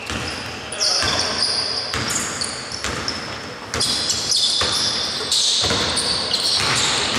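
A basketball being dribbled and bounced on a hardwood court in a reverberant sports hall, about once a second, with sneakers squeaking on the floor and players calling out.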